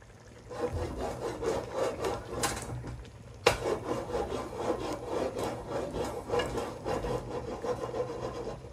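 Oval aluminum pot scraping back and forth on a gas stove's burner grate as it is shaken to cook the catfish courtbouillon, with a sharp knock about three and a half seconds in.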